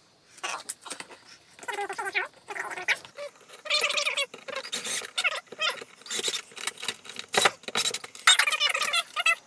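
Workshop assembly sounds, played sped up: a cordless drill driving screws, with parts being handled against a wooden backboard. The result is rapid clicks and clatter mixed with high, squeaky chirping.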